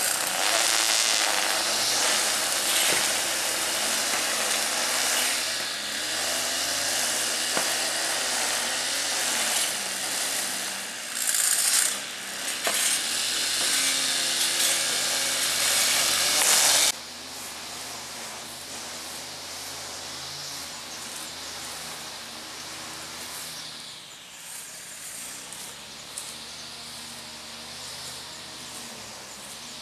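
Petrol brush cutter running with a steady, wavering engine drone. It cuts off suddenly about 17 seconds in, leaving a much quieter outdoor background.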